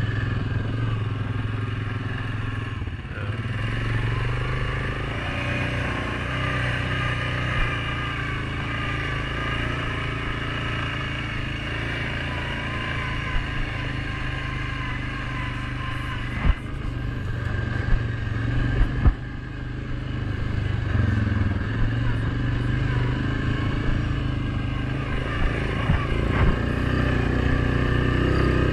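Suzuki King Quad 750 ATV's single-cylinder four-stroke engine running steadily along a trail, its pitch shifting a little with the throttle. A few sharp knocks come about two-thirds of the way through.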